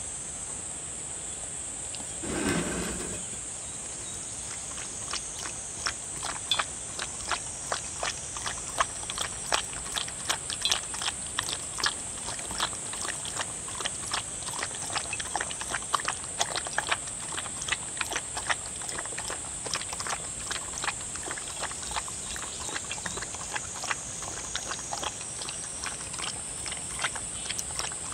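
A dog lapping and eating soup from a shallow bowl: a dense, irregular run of short wet clicks, several a second, that starts about five seconds in. A brief low sound comes about two seconds in.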